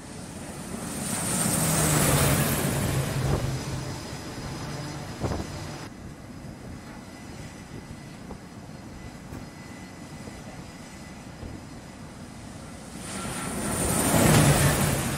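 E-2 Hawkeye's twin turboprop engines, a propeller drone with a high turbine whine, landing on a carrier deck. The sound swells loud as the aircraft passes close about two seconds in, then fades, with a sharp knock about five seconds in. It swells loud again near the end as another approach reaches touchdown.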